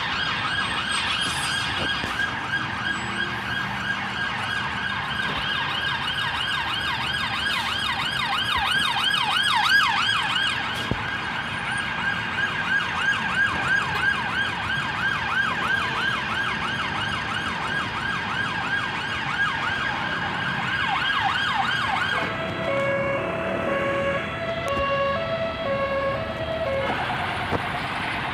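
Emergency vehicle siren on a fast yelp, about four rising-and-falling sweeps a second. About 22 s in it switches to a two-tone hi-lo pattern for a few seconds.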